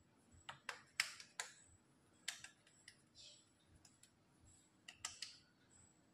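Light clicks and taps as hands handle flattened cookie dough rounds on a paper-lined metal baking tray: a few in quick succession in the first second and a half, one a little after two seconds, and a pair around five seconds in.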